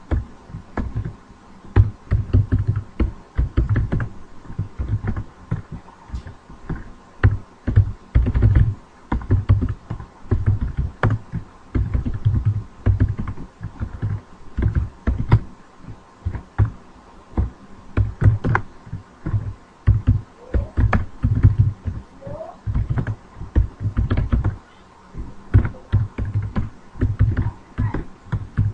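Typing on a computer keyboard: an uneven run of keystrokes in bursts, with short pauses between them.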